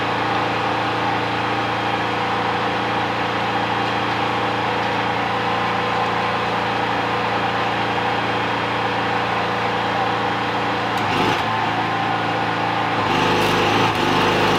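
A small engine running steadily at a constant speed, with an even hum. A rougher, fuller noise joins near the end.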